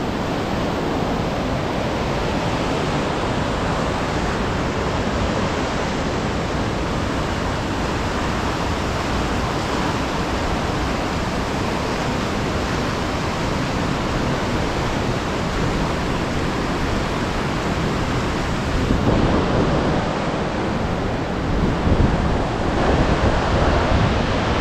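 The Teesta River in flood, a steady loud rush of fast-flowing water. About three-quarters of the way through, a deeper low rumble joins in.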